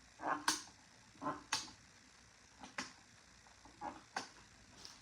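Rotary selector dials of a resistance decade box being turned one step each: about five crisp detent clicks roughly a second apart, each just after a softer rub of the knob.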